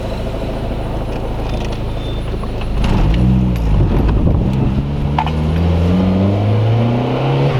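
Turbocharged 2.0 L four-cylinder of a 2002 Mazdaspeed Protege5 with a straight-pipe turbo exhaust. It runs low and steady, then about three seconds in gives a quick rev up and back down. After that it pulls with a steadily rising note as the car accelerates in first gear, and it drops off as the throttle is lifted at the very end.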